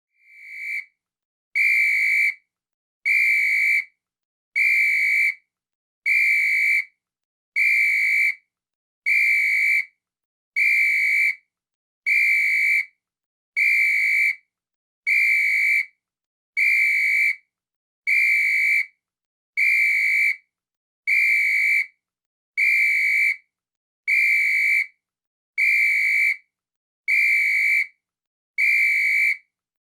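A whistle blown in short blasts of one steady high tone, about twenty identical blasts, one every second and a half or so.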